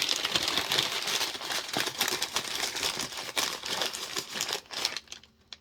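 Packing paper being crumpled and stuffed into a shipping box: a continuous crinkling rustle with fine crackles that dies away shortly before the end.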